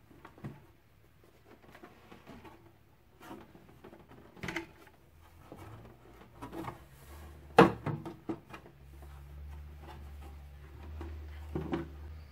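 Handling clicks and knocks on a Wifona P207 record player as its plastic dust cover is raised and the tonearm is moved by hand, with one sharp loud click a little past the middle. From then on a low steady hum runs.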